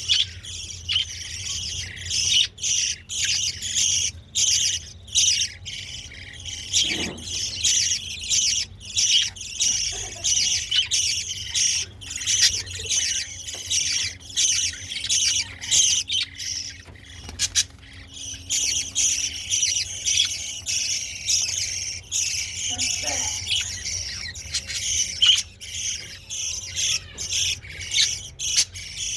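Caged budgerigars and Java sparrows chirping, squawking and chattering continuously, many short sharp calls overlapping.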